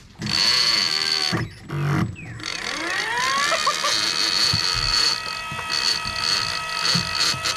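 Hooker Electric motor driving a Penn International 80VISW big-game reel, running with a steady high whine as it works the line against a pulling dog. It cuts out twice in the first two seconds, and its pitch slides up and down about three seconds in.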